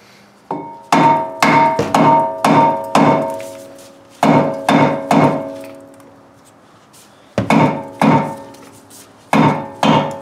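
A hammer striking the 2013 Dodge Dart's front brake rotor in runs of blows about two a second, with pauses between. Each blow leaves the cast-iron disc ringing like a bell. The old rotor is being knocked loose from the hub.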